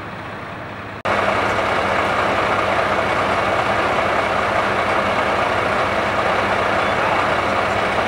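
A Ford work truck's engine idling close by, a steady running sound that gets suddenly louder about a second in.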